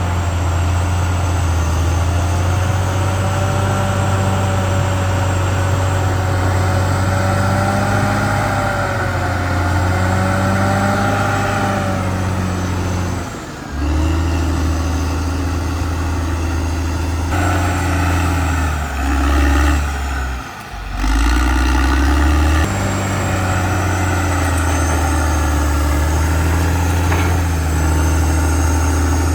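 CAT D6R XL bulldozer's diesel engine running steadily at work, with a wavering whine above the engine drone. The engine note dips briefly twice around the middle.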